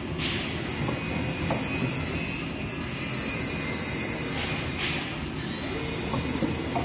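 CNC oscillating-knife cloth cutting machine running: a steady low roar with a few short hissing bursts, one near the start and two about four and a half seconds in.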